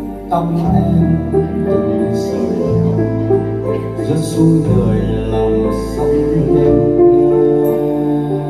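Instrumental break of a slow ballad played on a Yamaha Clavinova digital piano: sustained chords over a bass note that changes every second or two.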